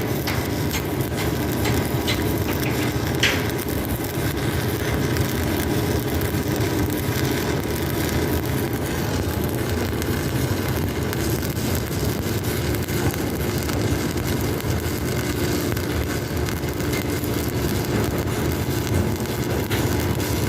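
Arc welding: the arc's steady, dense crackle, with a few sharp clicks in the first few seconds.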